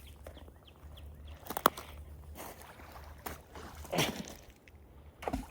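Several separate knocks and scrapes of stones being handled, turned over and set down at the water's edge, over a steady low rumble.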